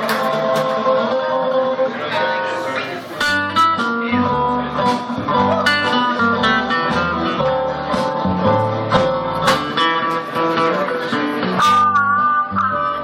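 Live band playing the slow instrumental intro of a song: plucked acoustic guitar with a held lead melody on top, and a low bass line coming in about three seconds in.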